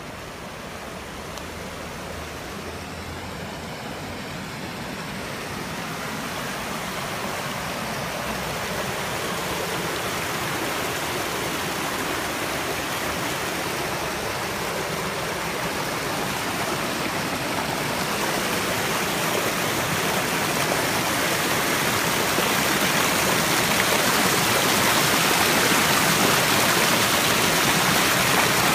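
Flowing water of a stream, a steady rushing hiss that grows steadily louder as it is approached.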